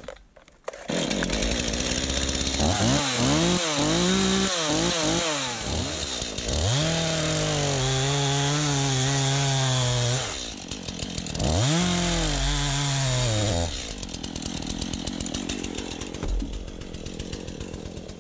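Stihl two-stroke chainsaw revving and cutting through a log: a few quick throttle blips, then long stretches at full throttle where the pitch sags and holds under load, with short drops between. Over the last few seconds it runs more quietly with a rapid ticking.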